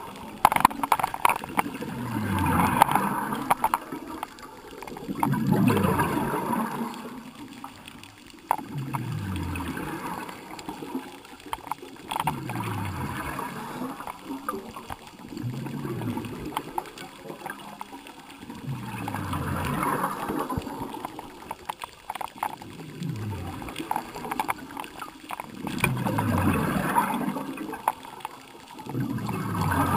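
Scuba diver's regulator heard underwater: a gurgling rush of exhaled bubbles repeats about every three seconds with each breath, and each rush opens with a low, falling rumble.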